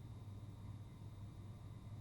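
Hotel room tone: a faint, steady low hum from the room's HVAC unit with a thin, steady high electrical whine and a soft hiss.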